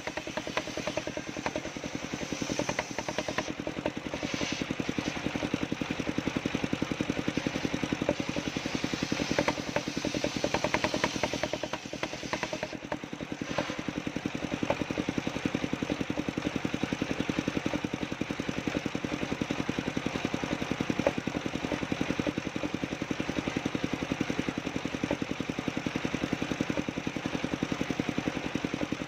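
Engine of a homemade sawmill running steadily, dipping briefly about twelve seconds in.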